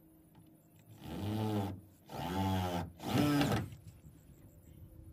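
Power drill run in three short bursts into wood, its motor speeding up and slowing down each time.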